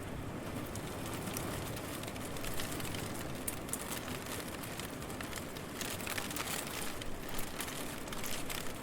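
Steady city rain: falling rain with many scattered drop ticks, over a low traffic rumble.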